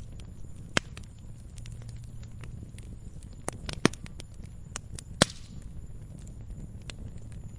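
Campfire crackling: burning wood gives a low, steady rumble with sharp, irregular pops and snaps throughout. Three louder pops come about a second in, near four seconds, and just past five seconds.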